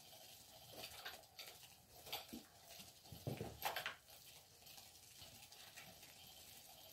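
Faint, scattered taps and scuffles of a cat pawing at a butterfly cat toy, the loudest knock about three and a half seconds in.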